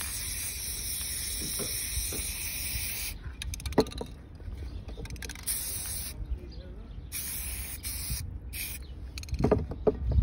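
Aerosol spray paint cans hissing as paint is sprayed onto the water surface of a hydro-dip tub: one long spray of about three seconds, then several shorter bursts. A few knocks come in between.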